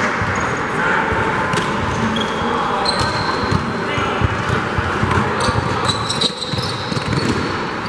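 Basketball game on a gym court: the ball bouncing and players' running footsteps as many short low thumps, with short high sneaker squeaks and a steady murmur of voices from the crowd.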